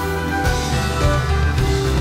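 Music: the instrumental intro of a J-pop song's backing track, with steady held chords over a full low end.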